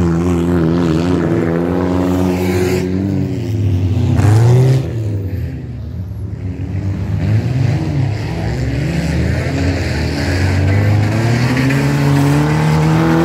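Stripped-out wreck-race cars' engines revving hard, their pitch climbing and falling again and again with throttle and gear changes. The sound dips for a couple of seconds about five seconds in, then picks back up.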